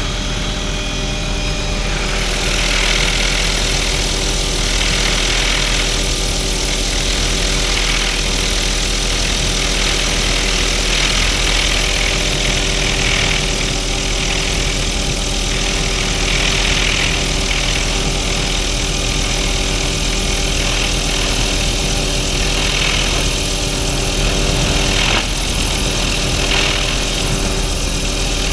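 Helicopter in flight with its doors off: a steady engine and rotor drone, with wind rushing past the open cabin in waves.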